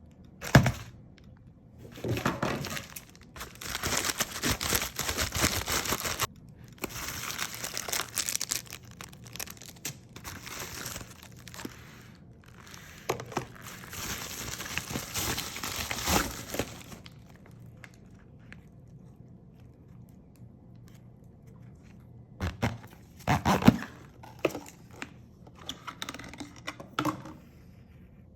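Packaging being torn open and crinkled by hand in long rustling stretches, with a few sharp clicks and knocks as the contents are handled.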